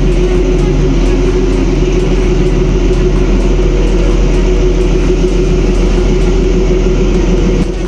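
Narrow-gauge diesel locomotive engine running steadily at a low, even pitch, close by.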